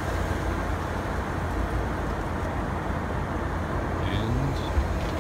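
Airliner cabin noise in flight: the steady low rumble and hiss of the jet engines and the air rushing past the fuselage, with a single soft thump near the end.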